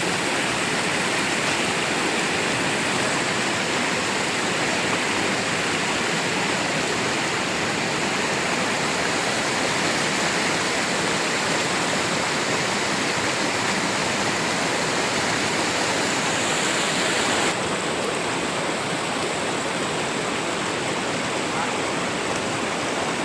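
Steady rush of flowing river water. The tone of the rush changes abruptly about three-quarters of the way through.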